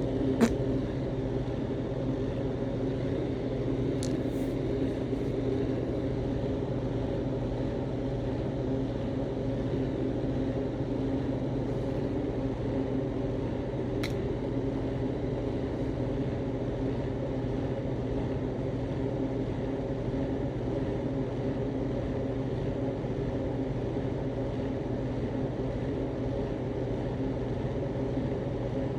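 A steady low mechanical drone, like a running motor, with a few brief clicks.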